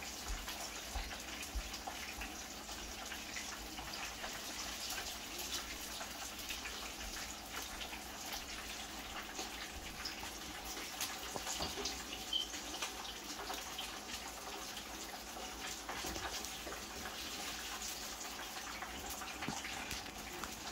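Hot oil sizzling and crackling steadily in a frying pan as floured banga mary fish pieces fry.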